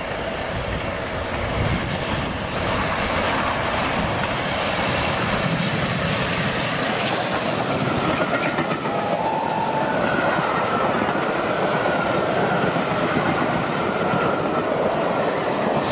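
A steam-hauled passenger train led by LNER A4 Pacific 60019 Bittern passes close by at speed, its coaches clattering over the rail joints. It grows a little louder about two seconds in, and a thin high tone comes and goes in the second half.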